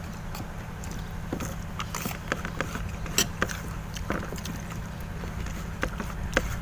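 Eating at a table: scattered light clicks and taps of a spoon and fingers on plates at irregular moments, over a steady low rumble.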